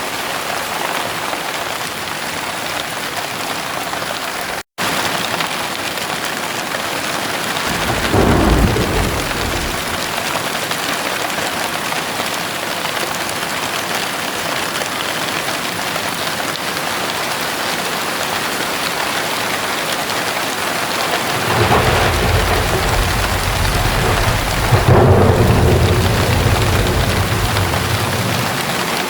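Heavy rain falling steadily, with a short roll of thunder about eight seconds in and a longer, louder rumble of thunder building from about 22 seconds and fading near the end. The sound cuts out for a split second about five seconds in.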